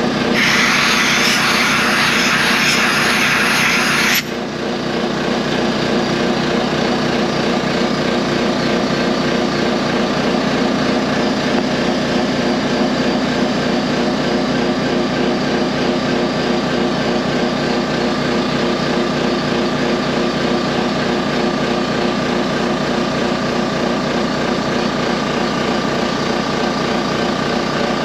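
Compressed-air blow gun hissing for about four seconds, then cutting off suddenly, blowing liquid off the part. A steady motorized hum of shop machinery runs underneath throughout.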